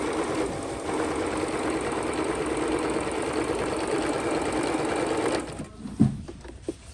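Jaguar CD-2203MP computerized sewing machine running steadily as it stitches a decorative pattern, stopping about five and a half seconds in. A single sharp click follows about half a second later.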